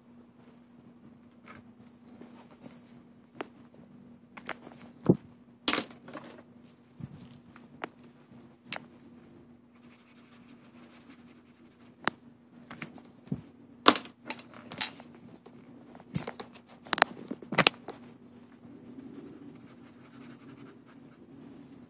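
Hand colouring with markers on paper: irregular sharp clicks and taps as the markers are worked and handled, about fifteen of them spread through, over a steady low hum.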